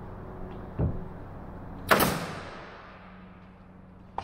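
A pneumatic brad nailer fires once about two seconds in: a sharp crack that trails off over about a second. It is preceded by a dull knock, and the sounds sit over a steady low hum.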